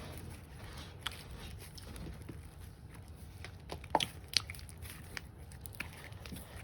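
Bingsu-bead slime being squished by hand, giving scattered small crackles and pops, with a few sharper pops about four seconds in.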